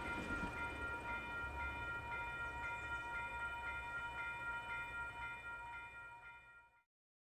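Railroad grade crossing warning bell ringing steadily at about two strikes a second, over the low rumble of the receding train. Both fade out and stop near the end.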